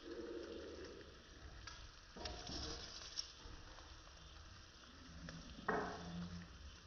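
Chana dal frying in a metal pan with a faint steady sizzle. A few louder stirring noises sound over it, the loudest a sudden one about six seconds in.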